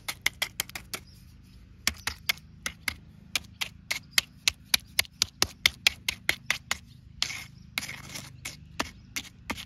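A small pointing trowel patting wet concrete around the base of a wooden post: a quick run of wet slaps, several a second, with a short pause about a second in. The patting brings the water up, so the mix gets more liquid.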